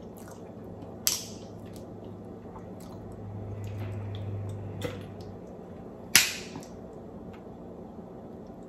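Fingers peeling and breaking the shells of boiled seafood, with two sharp cracks, about a second in and about six seconds in, among small clicks and wet squishes. A low hum is heard for a couple of seconds midway.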